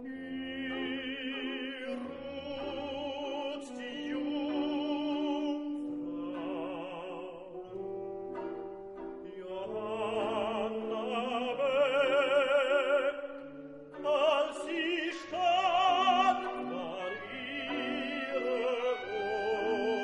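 Operatic singing with a strong vibrato over classical orchestral accompaniment. It swells louder about halfway through and again near the three-quarter mark.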